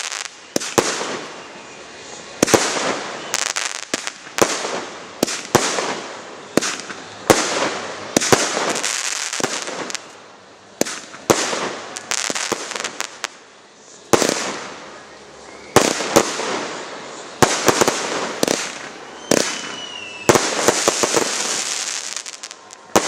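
Aerial fireworks shells bursting one after another, irregular sharp bangs about one or two a second, each followed by a fading hiss, with a quick cluster of bangs near the end.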